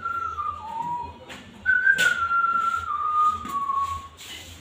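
A person whistling a tune: a clear melody of held notes that step downward, pausing briefly about a second in and stopping near the end. A sharp click about two seconds in.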